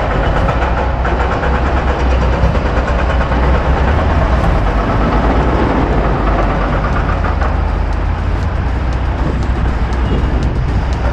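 Steady city traffic and riding noise with a heavy low rumble throughout.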